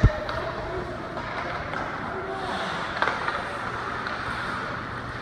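Ice hockey game sound inside a rink: a steady wash of skating and play with faint shouting voices. A heavy thud comes right at the start and a sharp knock about three seconds in.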